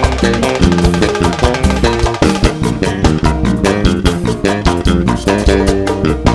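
Swingueira (Bahian pagodão) band playing: electric bass line over dense percussion and drum kit in a fast, syncopated groove.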